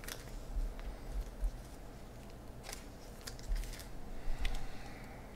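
A few light, sharp clicks and taps at irregular intervals, from hands handling things on the table.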